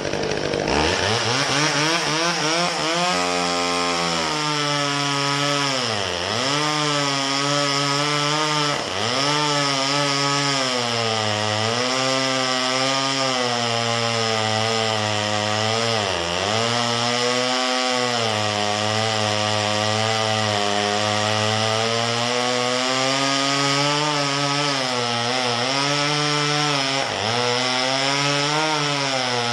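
McCulloch 34cc two-stroke chainsaw cutting through an elm log at high revs. Its engine revs up about half a second in, then the pitch dips briefly several times as the throttle is let go to push the manual chain-oiler lever.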